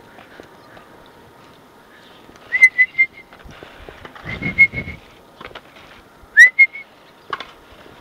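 Loud whistled chirps in three groups: each an upward-swooping note followed by a few short notes at the same pitch, about two seconds apart. A low rumble sits under the middle group.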